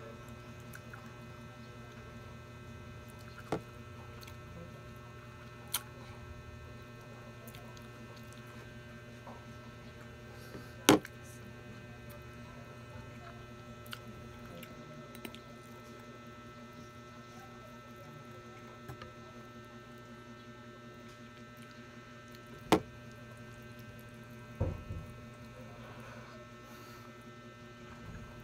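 Steady low electrical hum in a small room, with a few sharp clinks and taps on a ceramic plate as rice is eaten by hand. The two loudest clinks come about eleven seconds in and again about twenty-three seconds in.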